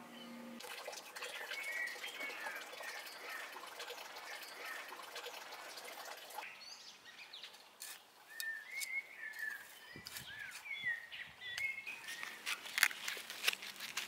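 Birds chirping with short rising and falling calls throughout. From about halfway through, a hand trowel scrapes and clicks as it digs into garden soil, the clicks growing more frequent toward the end.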